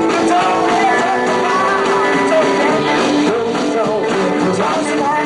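Live rock and roll band playing a high-energy song.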